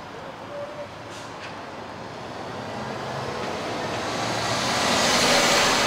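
MAN coach driving past at close range: the sound of its diesel engine and tyres grows steadily louder and is loudest near the end, as the coach passes by.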